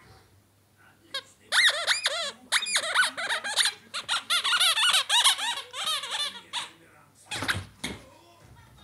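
A rubber squeaky toy squeezed over and over in a dog's jaws as it chews, giving a fast run of high, wavering squeaks for about five seconds. Near the end there is a short, loud rustling scuffle.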